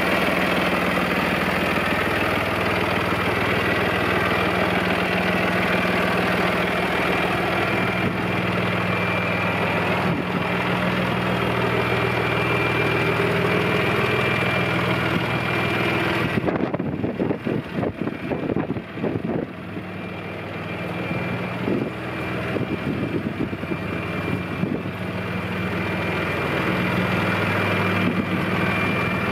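John Deere 5065E tractor's diesel engine idling steadily. About halfway through, the sound goes briefly dull with a few irregular knocks, then the even idle returns.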